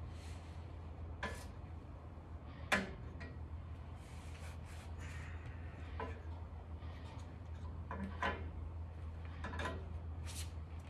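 Scattered light clicks and knocks of parts being handled as caps are pushed onto the ends of a portable gas grill's steel wheel-axle rod, the sharpest knock about three seconds in, over a steady low hum.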